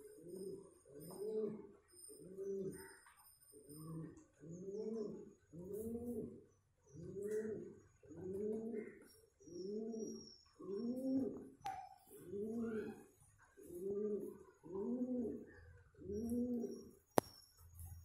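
Domestic pigeons courting, one cooing over and over at about one low coo a second, each coo swelling up and falling away. Faint high chirps run above, and there is a single sharp click near the end.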